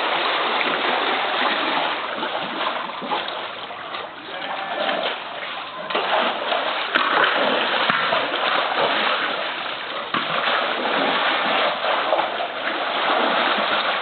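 Pool water splashing and churning as a polar bear plays in it with a float, with uneven swells and a few sharper splashes.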